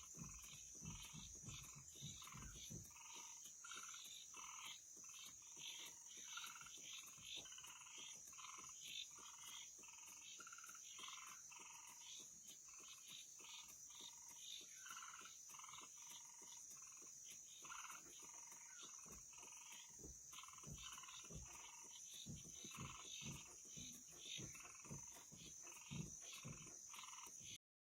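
Night chorus of frogs calling in short notes, repeated about once or twice a second, over a steady high-pitched trill. There are a few low thumps in the first seconds and again in the later part.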